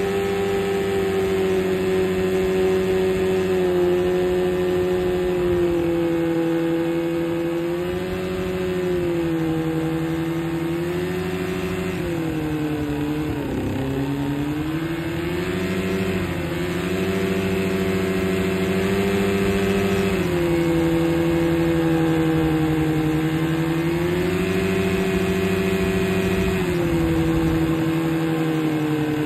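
Outboard motor running at speed on a jon boat in shallow water, its propeller surfacing, the blades breaking the surface and throwing spray, with a hiss of water under the engine note. The note sags and recovers several times, most deeply about 13 seconds in.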